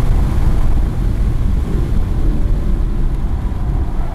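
Race car engine, tyre and wind noise heard from inside the car at about 100 mph, the car slowing to about 60 mph under braking.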